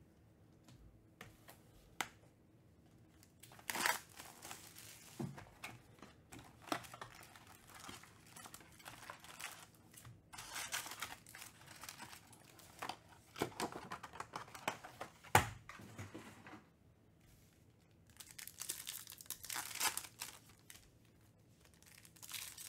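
Trading card pack wrappers being torn open and crinkled in irregular bursts, with a few sharp clicks. The loudest click comes a little past the middle.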